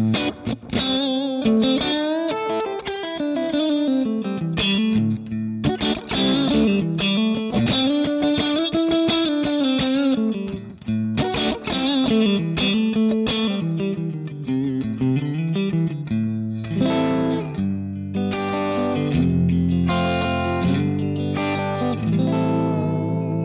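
Electric guitar played clean through a Line 6 Helix amp-modeller patch, an EF86-channel amp model with optical compressor, DM2-style delay and room reverb. It plays bending single-note lines, then fuller chords from about two-thirds of the way in.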